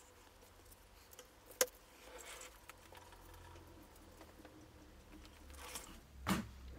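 Faint tool-handling sounds on a work table: a cloth-wrapped paintbrush is set down with one sharp click about a second and a half in, then faint rustling and a couple of light knocks near the end.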